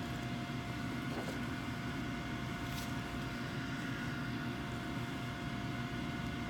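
Steady low hum of room ventilation, with a few faint steady whine tones over it. Two faint ticks sound about one and three seconds in.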